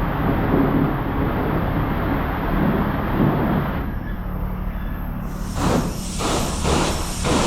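A vehicle engine idling with a steady low hum, then from about five seconds in a high-pressure car-wash spray wand hissing on, pulsing in four or five strong bursts.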